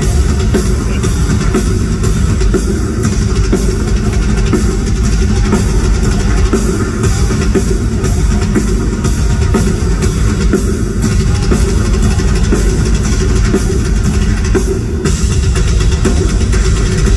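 Rock drum kit played live as a solo, a steady stream of fast, loud hits with heavy bass drum and cymbals filling a large hall. The drumming dips briefly near the end, then picks back up.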